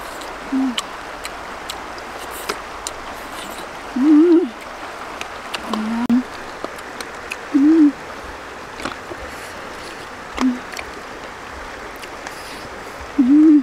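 Steady rushing of a river or stream, broken by six short, low hooting calls spaced a few seconds apart, with scattered small clicks.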